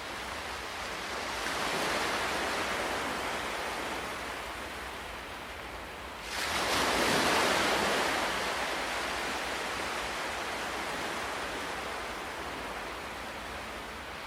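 Ocean waves breaking on a shore: one wave swells and recedes about two seconds in, then a louder wave breaks suddenly about six seconds in and washes out slowly.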